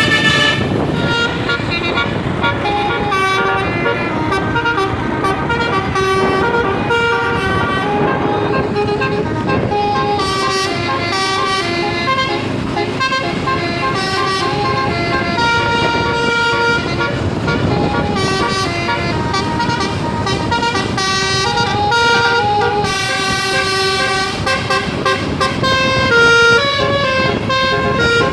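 Bus telolet horn of the basuri multi-tone type playing a tune: held notes that step from pitch to pitch, several tones sounding together, over a low rumble of vehicle noise.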